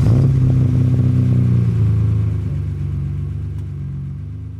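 A car engine fires up with a sudden burst, then runs steadily at a fast idle, slowly fading away toward the end.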